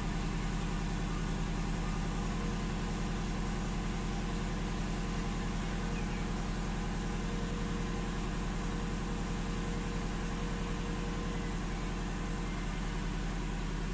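Car engine idling steadily, heard from inside the cabin.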